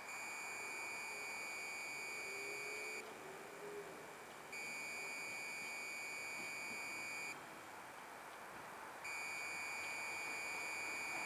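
Electronic beeper sounding long, steady, high-pitched beeps: three beeps of about three seconds each, with gaps of a second and a half or so between them.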